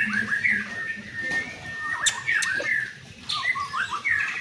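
White-rumped shama (murai batu) singing a fast, varied run of short whistled and chirping notes, with one held note in the middle. A few sharp clicks sound about a second and a half to two and a half seconds in.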